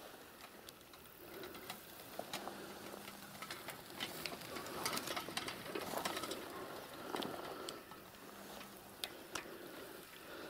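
Bicycle and a metal bucket hung on its handlebars clinking and rattling as it is wheeled and ridden over a rough grassy track, with grass brushing past; the sharp clicks come thickest in the middle.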